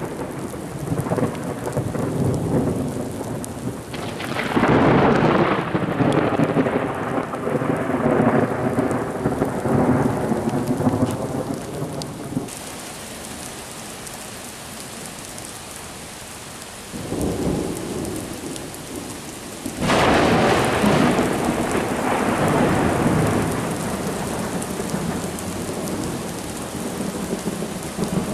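Thunderstorm: steady rain with long rolls of thunder. One rumble starts about four seconds in and lasts several seconds, a short one comes later, and another long roll starts about twenty seconds in.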